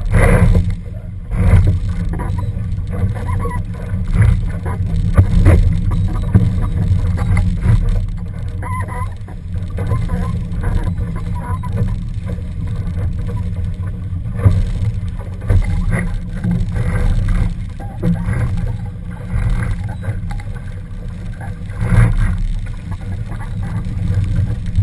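Wind buffeting the microphone of a camera mounted on a Laser dinghy under sail, a heavy steady rumble, with brief splashes and slaps of choppy water against the hull scattered throughout.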